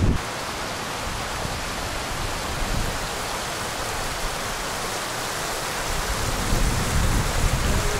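Steady rushing hiss of running water, with low irregular rumbling that builds in the last two seconds or so.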